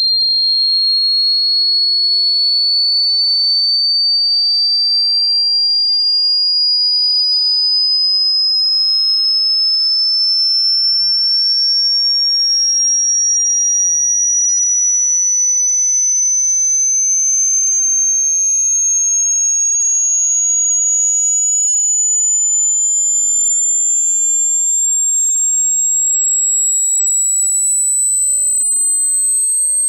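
Pure sine test tone of an online hearing test, sweeping slowly and steadily upward from a high pitch to a still higher one at an even, loud level.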